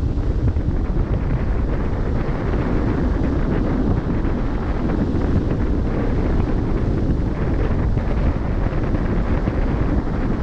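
Wind buffeting the microphone on a cruise ship at sea: a steady low rush with small gusts.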